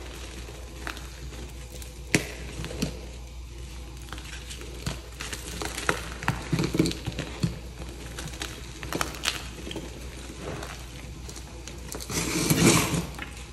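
Hands crushing and crumbling soft, freshly pasted reformed chalk blocks: crispy, crunchy crackling with many small sharp snaps, loudest in a burst of crushing near the end.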